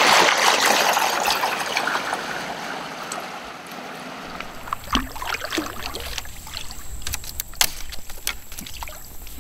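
Water rushing and splashing around a kayak as it moves off, loud at first and fading over about four seconds. After that, a quieter stretch of low rumble with scattered small knocks and clicks.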